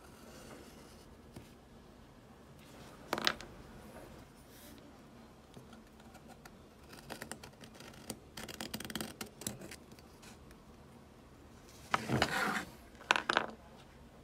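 Pencil and awl points scratching along a metal square as they mark lines on a wooden board, a run of short scratchy strokes in the middle. A sharp knock about three seconds in and a louder clatter of handling near the end, as the square and tools are moved.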